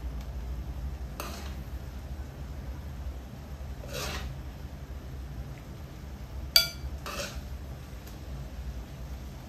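A single sharp clink of dishware with a short ring, about two-thirds of the way through, over a low steady hum. A few short, soft brushing noises come roughly every three seconds.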